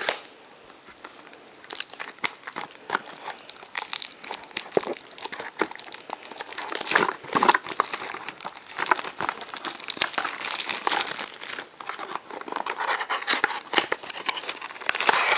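Crinkling and tearing of plastic and foil wrapping as a box of baseball trading cards is unwrapped and its packs handled, an irregular run of crackles and rustles that gets busier about halfway through.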